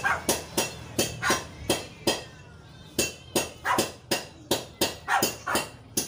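A dog barking over and over in a fast run, about three barks a second, with a short break near the middle.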